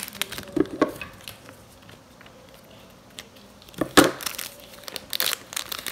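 Pokémon card-pack wrappers crinkling and rustling as the packs are handled, in scattered short crackles with a louder rustle about four seconds in.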